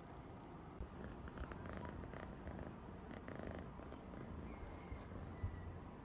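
A domestic cat purring, a faint low rumble.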